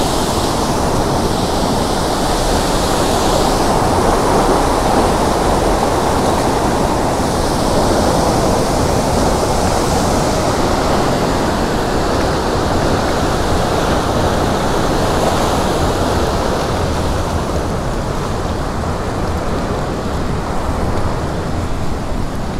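Water pouring through a lake spillway under strong pressure: a steady, dense rush of water.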